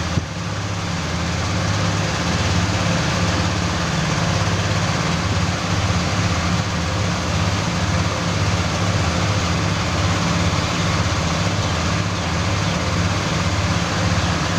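Steady mechanical hum with a low, pulsing throb, like a running engine or motor, continuing without a break.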